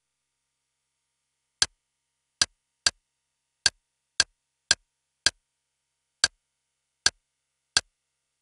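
Media-centre menu navigation clicks: a short click each time the highlighted channel in the on-screen list steps down by one, about ten clicks at an uneven pace.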